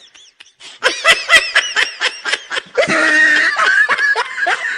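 High-pitched laughter in rapid short bursts, about five a second, starting just under a second in after a brief quiet moment, with a longer held squeal of laughter near the middle.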